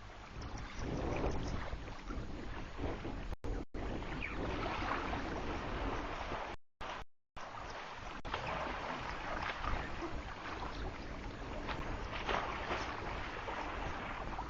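Water splashing and sloshing, with wind on the microphone. The sound drops out completely a few times, once for most of a second near the middle.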